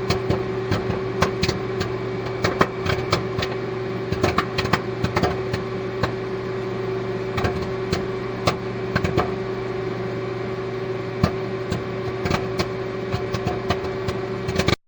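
A steady machine hum with irregular sharp clicks and pops scattered through it. It stops abruptly near the end.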